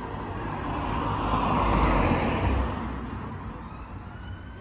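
A car passing close by: its tyre and engine noise swells to a peak about two seconds in, then fades away.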